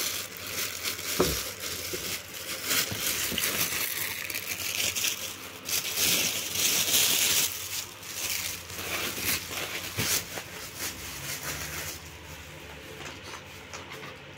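Clear plastic packaging wrap crinkling and rustling as it is handled, loudest about halfway through and dying down over the last couple of seconds.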